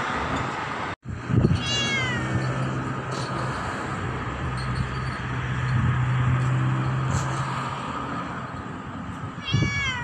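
Domestic cat meowing twice, each meow about a second long and falling in pitch: one about two seconds in and one near the end. A steady low hum runs underneath through the middle.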